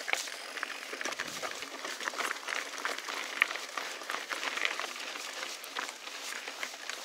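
Mountain bike riding a dirt trail: steady tyre noise with frequent short rattles and clicks from the bike over rough ground.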